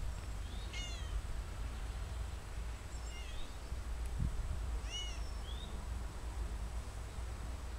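Cat meowing: four short, high-pitched meows, the last two close together, over a low steady rumble.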